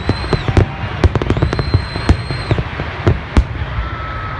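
Fireworks display: a rapid run of sharp bangs and crackling pops over a continuous low rumble. A high, steady whistle sounds briefly at the start and again for about a second in the middle.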